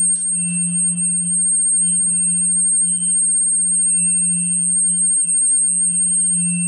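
A steady low electronic hum, wavering slightly in strength, with a constant thin high-pitched whine above it and faint higher tones coming and going.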